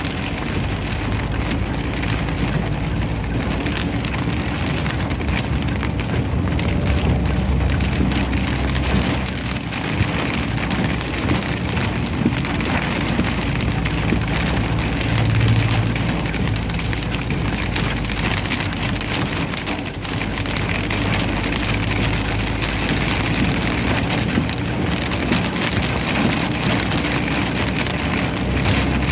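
Heavy hail and rain pelting down, a steady dense clatter of many small impacts.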